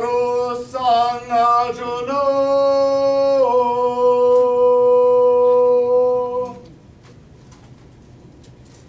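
Balinese shadow-puppet chant sung by the dalang: a few short sung notes, then one long held note that steps slightly lower partway through and breaks off about two-thirds of the way in.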